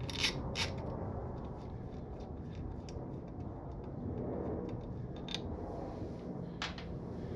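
Small metallic clicks and scrapes of a T25 Torx driver working the screws out of a Harley-Davidson Milwaukee-Eight primary derby cover. There are a couple of sharper clicks near the start and two more later on, over a low steady background hum.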